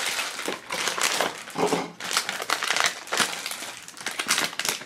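Crinkling and crackling of a holographic foil blind bag and its small cardboard box being handled and opened, a dense run of irregular crackles.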